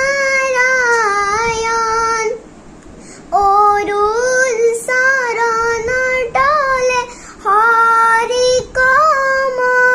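A young girl singing an Assamese devotional song to Krishna unaccompanied, drawing out long held notes whose pitch wavers and bends, with a short pause for breath about two and a half seconds in.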